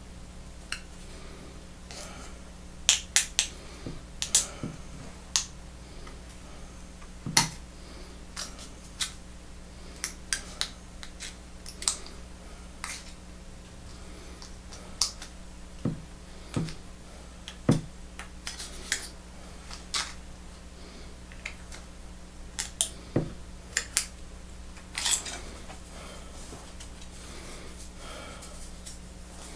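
Tin snips taking small cuts in a thin piece: an irregular string of sharp clicks and snips as the jaws close, some close together in pairs, over a faint steady hum.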